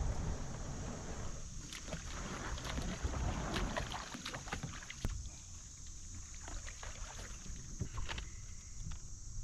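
Kayak moving on a creek: water swishing around the hull, with scattered light knocks and clicks, over a steady high insect drone.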